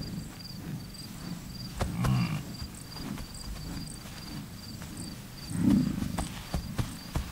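American bison bellowing twice, a low rumbling call about two seconds in and a louder one near six seconds, the roar bulls give in the rut. Insects chirp steadily behind, about three chirps a second.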